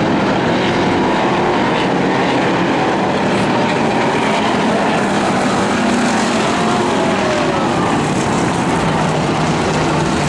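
A pack of hobby stock dirt-track race cars racing around the oval, their engines running together in a loud, steady din.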